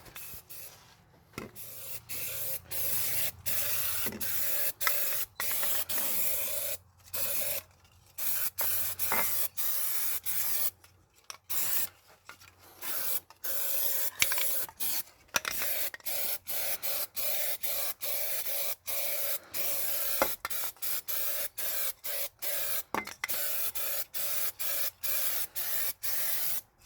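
Aerosol spray-paint can hissing in a long string of short bursts, each a second or so long, with brief breaks between and a few longer pauses.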